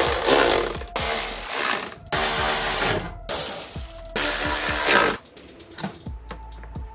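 A power driver running in about five bursts of roughly a second each, spinning down after each, as fasteners for the tail fairing are driven in. Near the end come lighter clicks and knocks.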